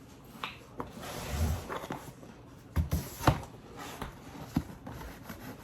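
Packages being handled and opened: rustling with scattered knocks and taps, the loudest two close together about three seconds in.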